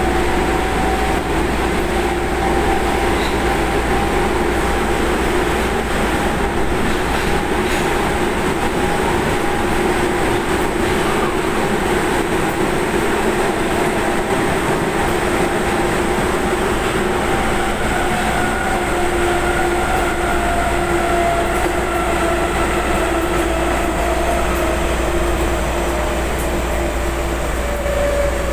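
Osaka Metro 23 series subway train running through the tunnel, heard from inside the car: a steady, loud rumble of wheels and running gear with a faint whine whose pitch sinks slightly near the end.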